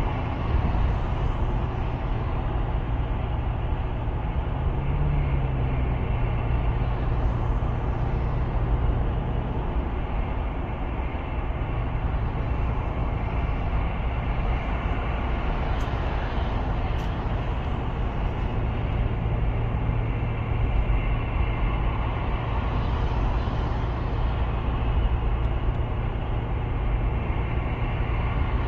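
Motor vehicle driving at a steady pace: continuous engine and road noise with a low hum.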